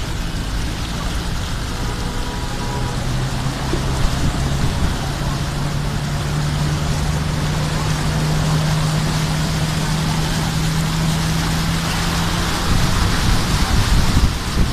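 Passenger van driving through deep floodwater: a steady rush of water thrown up along its side, with the engine's hum underneath. The hum rises a little in pitch about five seconds in and fades near the end, when the splashing gets louder.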